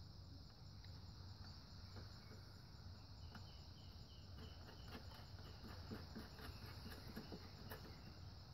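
Near silence: faint steady insect chirring, with a few faint light clicks.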